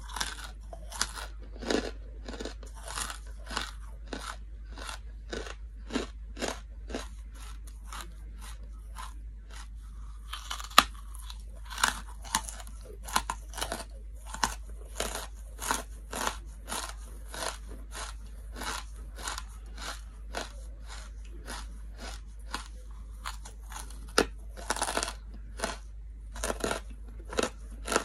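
Close-miked crunching and chewing of hard charcoal chunks, a steady run of sharp crunches about two a second, with one louder bite about eleven seconds in.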